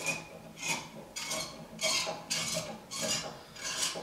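A screwdriver turning a spring-loaded headlamp adjusting screw, with a short rasping scrape on each twist, about two a second.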